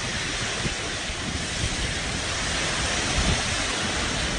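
Strong storm wind blowing steadily, with a few brief low buffeting gusts.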